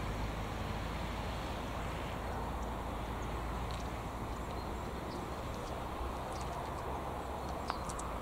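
Steady outdoor background noise, with a low rumble fading away over the first couple of seconds and a few faint, short high ticks later on. The crossing's warning bell is not ringing.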